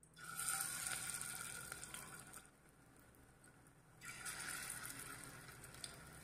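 Soybean tikki patties slid one at a time into hot refined oil in a pan. Each sets off sizzling that dies down over about two seconds, the second one about four seconds in.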